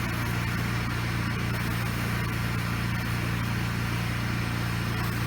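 Pressure washer engine running steadily under load while cleaner solution is sprayed, with an even hiss of spray over the engine drone.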